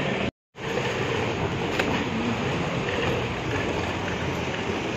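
Steady street traffic noise from a city road, with no clear rise or fall of a single vehicle. The sound drops out completely for a moment just under half a second in, at an edit cut.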